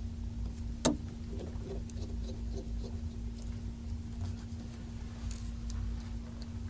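Small Phillips screwdriver driving the tiny screws back into a Samsung Galaxy S3's housing: light scattered ticks and scratches of metal on screw heads and plastic, with one sharper click about a second in, over a steady low hum.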